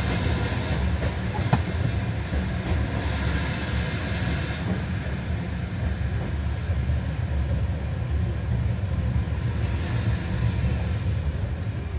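Overnight passenger train running on its rails with a steady low rumble as it arrives at a station. There is one sharp click about a second and a half in.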